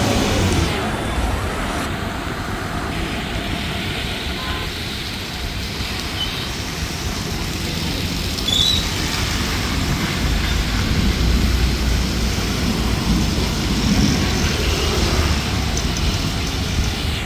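Steady road and traffic noise heard from a vehicle moving along a wet street, with tyres hissing on the wet surface. A low rumble grows stronger about ten seconds in.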